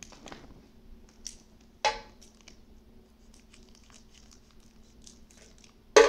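Foil booster-pack wrapper of Pokémon cards being handled and opened: light crinkling and ticking, a short sharp crackle about two seconds in and a louder burst of crinkling at the very end.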